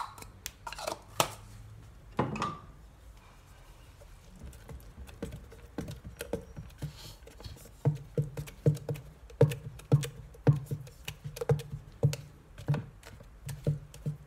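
A spatula stirring thick cake batter by hand in a plastic blender jug, knocking and scraping against the jug's sides in a steady rhythm of about two strokes a second. A few taps and a knock come in the first two seconds, before the stirring starts.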